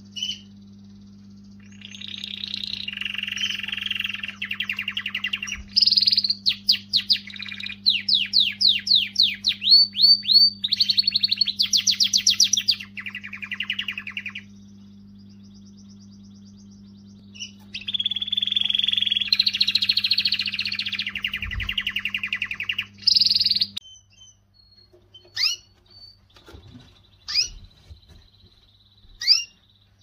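Canary singing: two long song passages of fast trills and rapidly repeated sweeping notes, separated by a pause of a few seconds, then a few short single chirps near the end.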